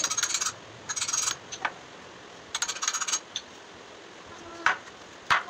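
Three short rasping scrapes of a metal hand tool working on pine timber, each about half a second long, then a few sharp single knocks of wood being handled near the end.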